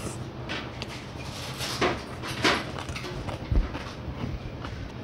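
Close-miked eating: a mouthful of rice being chewed, with a few short wet mouth sounds about two and two and a half seconds in and a dull knock about three and a half seconds in, over a steady low hum.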